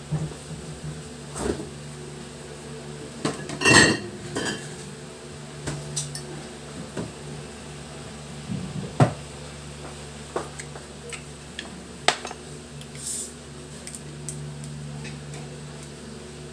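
Scattered clinks and knocks of dishes and a drinking glass being handled, the loudest a ringing clink about four seconds in, over a steady low hum.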